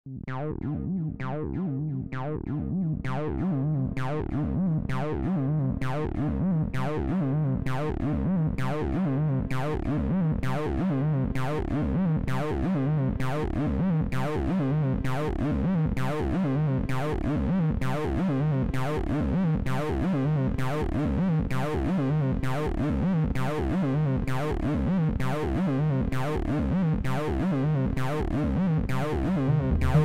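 Background electronic music: a synthesizer playing a steady, evenly paced run of plucked notes over a sustained low chord. It fades in over the first couple of seconds.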